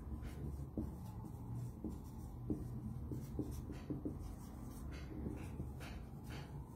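Felt-tip marker writing on a whiteboard: a run of short, irregular pen strokes and squeaks.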